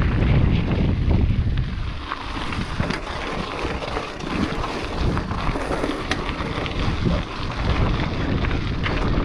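Wind buffeting the microphone as a mountain bike rides fast over a rocky gravel trail, with a heavy low rumble, the crunch of tyres on gravel and the rattle of the bike over stones.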